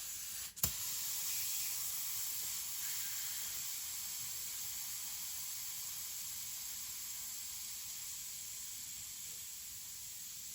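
Air hissing out of a dirt bike tyre's inner tube through the valve, a steady high hiss that slowly weakens, with a sharp click about half a second in. The tyre is being let down because its bead has not fully seated on the rim.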